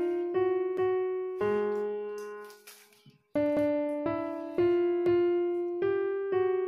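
Background piano music: single notes struck about every half second, each ringing and dying away, fading out briefly near the middle before the notes start again.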